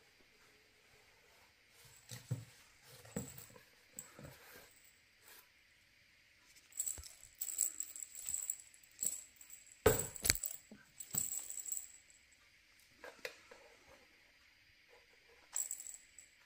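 A tabby cat scrabbling and kicking inside a cardboard box while batting at a wand toy on a string: scattered scratches, rustles and knocks on the cardboard, with a sharp thump about ten seconds in and light jingling in the busiest stretch.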